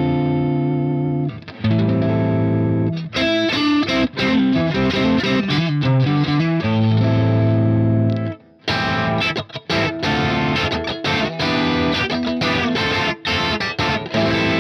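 Electric guitar played through the Boss IR-2 amp-and-cabinet simulator on its Marshall amp model, all controls at noon, with a driven tone. Held chords and a single-note lick, then after a short break about eight seconds in, quick rhythmic chord strumming.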